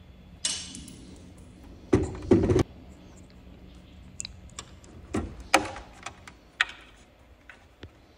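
Hands handling a backup battery and its terminal connectors in the battery compartment of a LiftMaster garage door opener. A short scrape comes about half a second in, two heavy plastic thumps follow about two seconds in, then several lighter clicks and knocks.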